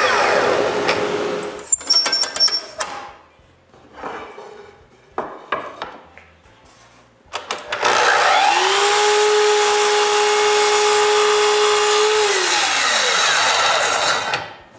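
Power saw: its motor winds down at the start, a few wooden knocks follow as pieces are handled, then the saw spins up about eight seconds in, runs steadily for about four seconds and winds down again. This is the cutting of pieces for a small mitered frame.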